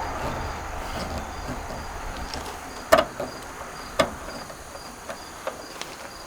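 Road traffic noise fading away, then two sharp metallic clicks about a second apart and a few fainter ticks as the sail switch is unscrewed and removed from a Dometic RV furnace. Crickets chirp faintly and evenly underneath.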